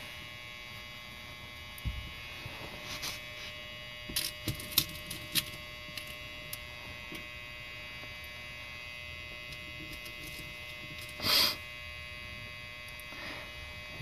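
Small, light metallic clicks of tiny lock pins being handled and set into an ASSA Twin 6000 high-security cylinder, scattered through the first half, over a steady electrical hum. About eleven seconds in there is a brief, louder rush of noise.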